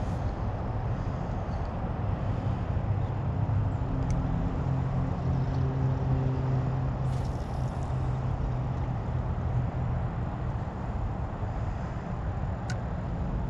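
Steady low rumble of distant road traffic, with a vehicle's engine hum swelling through the middle. Two faint clicks are heard, one a few seconds in and one near the end.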